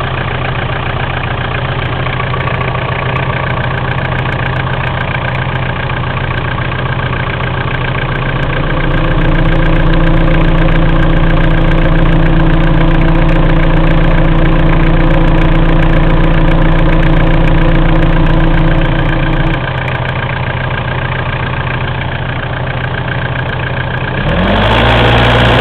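Mitsubishi 4M40 2.8-litre diesel engine idling, held at raised revs for about ten seconds from about a third of the way in, then dropping back to idle and revved up once more near the end. The engine is being run to show a knock in it.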